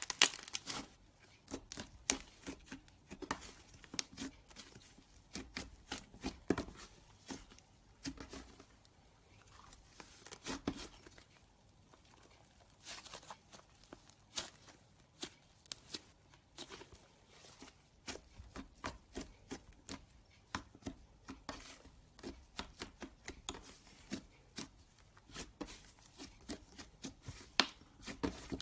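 Slime being squeezed and poked close to the microphone: irregular sticky clicks and pops, several a second, with a couple of short lulls.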